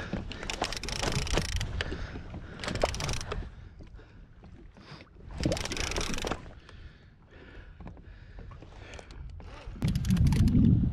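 Water sloshing against a small kayak's hull in short swells, with scattered small knocks from gear being handled. Wind buffets the microphone with a loud low rumble near the end.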